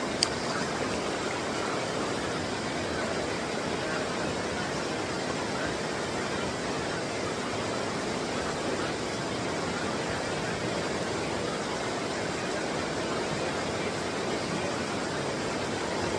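Steady rush of flowing creek water, an even hiss that does not change, with a single sharp click just after the start.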